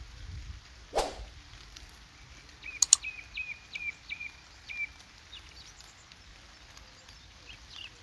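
A single falling swoosh about a second in, two sharp clicks near three seconds, then a run of six short, high chirps at even spacing, over a low outdoor background.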